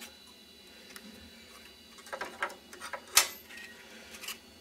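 A few light clicks of 35 mm slide mounts being dropped into the slots of a round carousel slide tray, the sharpest a little after three seconds in.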